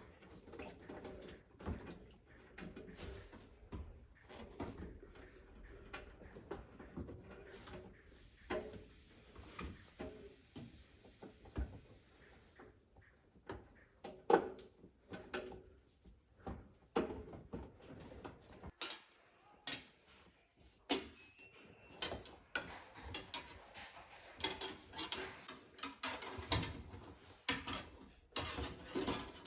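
Irregular clicks, knocks and rubbing of hands and tools working on a washing machine during a door-seal replacement, with a soft hiss about nine to twelve seconds in.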